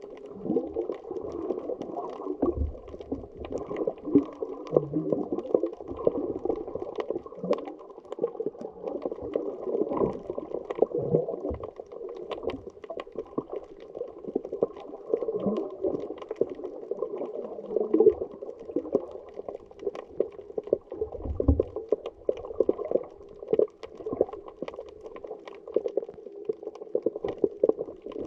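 Muffled underwater sound heard through a camera's waterproof housing: a steady watery rush and bubbling, with scattered sharp clicks and crackles throughout.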